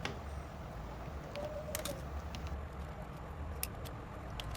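A few faint, sharp clicks from a small plastic keypad phone being handled and opened, over a low steady hum.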